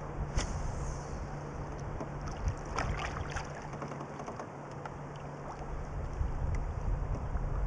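Steady outdoor ambience of river water and wind around a kayak, with a few light knocks about three seconds in.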